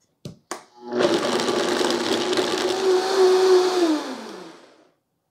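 Two short clicks as the lid goes onto the blender jar, then a countertop blender runs at a steady speed for about three seconds, blending roasted diced apple with kombucha. Its motor pitch falls away as it winds down near the end.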